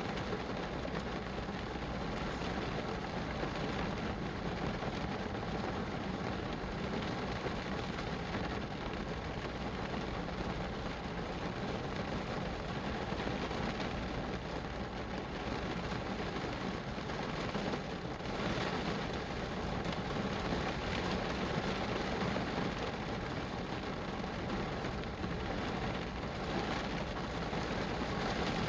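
Steady rain falling, an even hiss of drops that holds at much the same level throughout.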